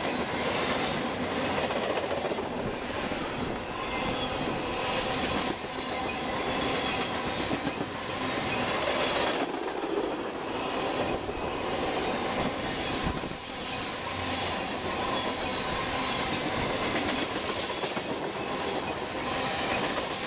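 Freight cars (tank cars and covered hoppers) of a passing freight train, their steel wheels rolling over the rail in a steady rumble and clatter, with faint steady squealing tones from the wheels.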